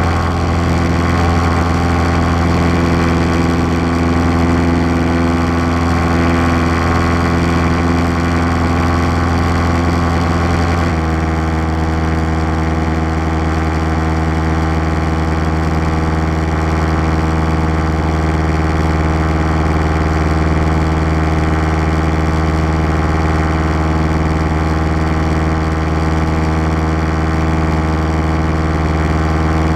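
Steady drone of a light aircraft's engine and propeller in cruise, heard inside the cabin. The tone changes abruptly about eleven seconds in, then holds steady again.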